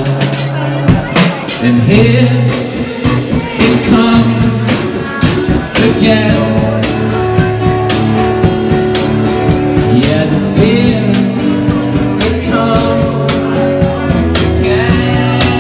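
Live rock-and-roll song: a singer with an amplified acoustic-electric guitar, backed by drums hit on a steady beat.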